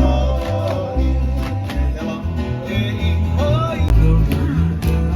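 Background music: an upbeat song with a melody over plucked guitar, bass and a steady beat.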